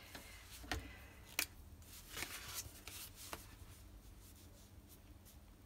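Faint handling sounds: a few light clicks and rustles as a clear fountain pen is uncapped and the paper is shifted, then the soft scratch of the nib writing on textured paper.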